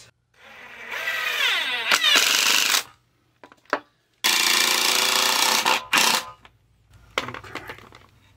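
Yellow cordless drill driving wood screws through a wooden block into a 2x4: two long runs of the motor, the first climbing in pitch as it speeds up, then a short final burst as a screw seats.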